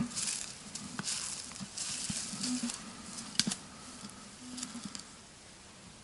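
Footsteps swishing through dry grass and leaf litter while a metal detector is swept over the ground. The detector gives three short low beeps about two seconds apart, and there is one sharp click about three and a half seconds in.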